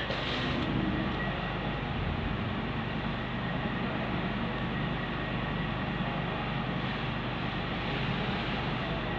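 Steady background rumble and hiss with no clear source, and a brief burst of noise just after the start.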